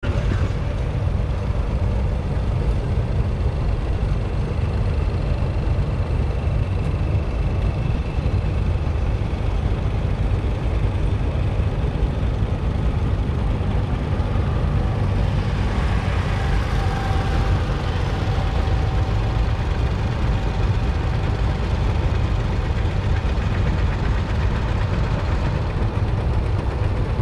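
Engines of vintage farm tractors running steadily as a line of them drives past. A louder, brighter stretch comes about halfway through.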